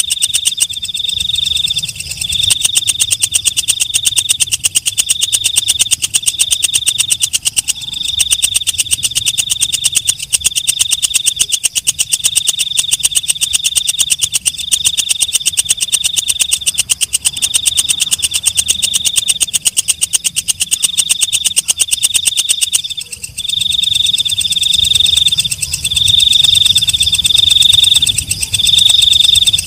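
Katydid (walang kecek) stridulating: a loud, high, very rapid ticking trill, repeated in trains of about a second with short gaps between them. It breaks off briefly about 23 seconds in, then comes back louder.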